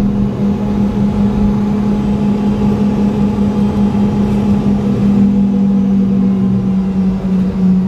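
Cabin noise of a Boeing 717 taxiing, its two rear-mounted Rolls-Royce BR715 turbofans at idle: a steady loud drone with a strong low hum and fainter whines above it. The hum dips slightly in pitch about five seconds in.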